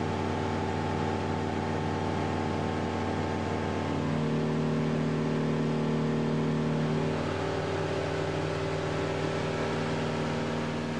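Engine and propeller of a Flight Design ultralight droning steadily in cruise, heard inside the small cabin. The drone's pitch shifts about four seconds in and again around seven.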